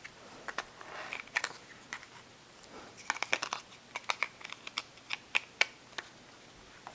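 Irregular run of small, sharp clicks and taps from an iPhone 4 and its back plate being handled and fitted back on. The clicks come thickest in the middle of the stretch.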